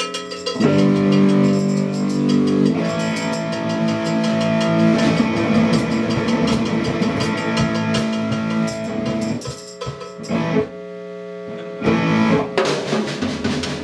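A guitar and a drum kit played live together, sustained guitar notes over drumming; the playing thins out about ten seconds in, then a few loud hits near the end.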